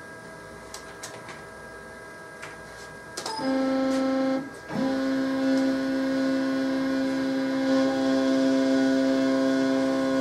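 CNC router's Z-axis stepper drive whining at a steady pitch as it moves the spindle head down to pick up the tool's Z coordinate. It starts about three seconds in, stops briefly, then runs again steadily to the end, with a few light clicks before it.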